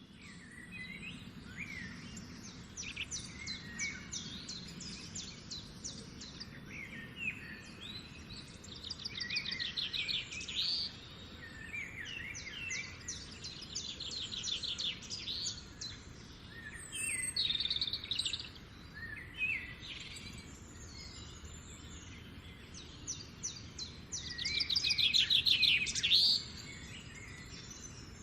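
Songbirds singing at dawn: bouts of fast, high trills every few seconds mixed with shorter chirps and whistles, the loudest trill about three-quarters of the way through, over a steady low background rumble.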